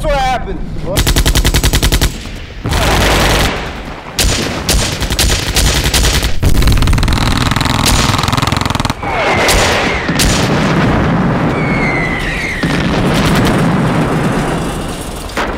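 Film battle-scene soundtrack of automatic rifle fire: a fast burst about a second in, then more bursts and single shots over a dense din of gunfire.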